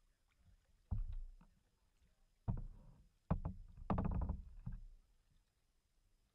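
Kayak paddle strokes splashing in the river: four sudden splashes over about four seconds, each fading quickly, then quiet water.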